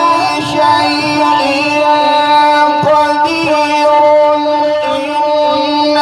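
A male qari reciting the Quran in melodic tajweed style, holding long drawn-out notes with a short break about three seconds in.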